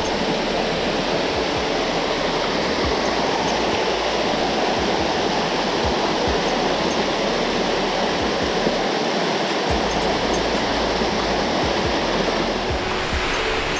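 Waterfall rushing in a steady, unbroken roar of falling water, running full after heavy rain.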